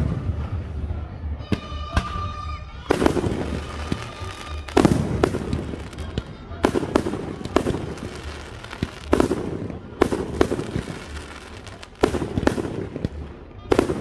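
Aerial firework shells bursting: about eight heavy bangs, spaced one to two seconds apart, with crackling stars between them.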